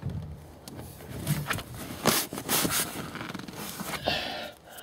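Handling noise as a hand rummages in a plastic dash storage cubby and pulls out an audio cable: scraping and rustling, with several sharp clicks and knocks in the middle and a longer scrape near the end.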